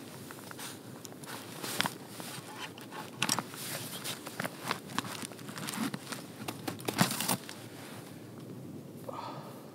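Close handling noises: rustling of a padded winter jacket with irregular clicks, crackles and crunches as a thermos flask is taken out and handled.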